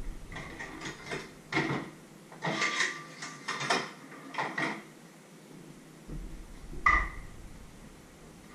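Dishes and kitchenware clattering: a run of clinks and knocks as things are handled at the sink, then, about seven seconds in, a single sharp clank with a brief ring as a stainless steel bowl is set down on the counter.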